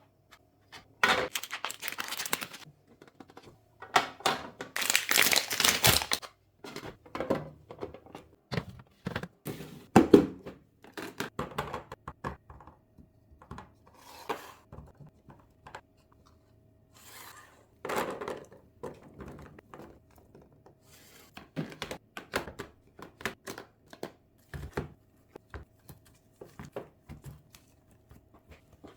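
Plastic grocery packaging crinkling and rustling in bursts, with clicks and light thunks of items and containers being handled and set down. A faint steady hum runs underneath.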